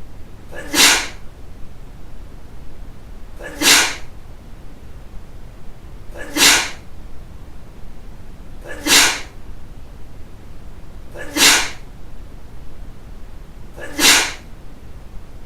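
A run of six sharp sneezes, evenly spaced about two and a half seconds apart.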